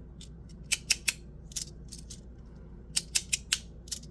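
Parker's 3D Prints Tectonix, a 3D-printed magnetic fidget slider with light magnets, being slid back and forth. It gives sharp clicks as the plates catch and snap into place: a quick run of three about a second in, a single click, then four more near the end.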